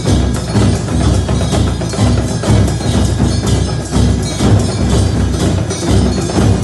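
Temple aarti percussion: large brass hand cymbals (jhanjh) clashing in a fast, steady rhythm, with ringing bells.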